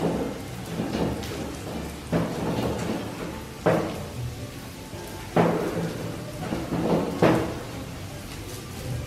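Cleaver chopping a green chili on a wooden cutting board: a few sharp knocks about every one and a half to two seconds, with lighter taps between. Under them, the steady sizzle of onions and garlic frying in oil.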